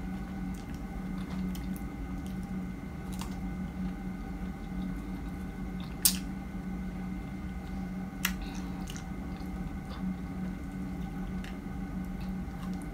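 Close-mouthed chewing of fresh strawberries: soft, wet squishing with a few light mouth clicks, and one sharp click about six seconds in and another about two seconds later. A steady low hum runs underneath.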